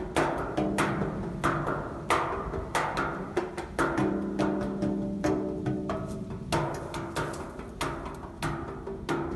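Pieces of iron struck as a percussion instrument in an irregular rhythm, about two to three strikes a second, each hit ringing on in several sustained pitches.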